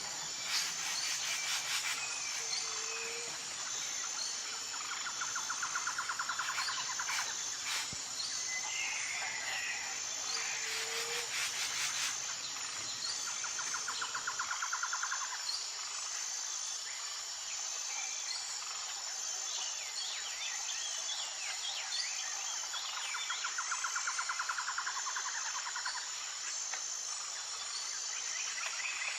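Outdoor nature ambience: a steady high-pitched insect chorus, with birds chirping here and there and a pulsing trill that comes back about three times.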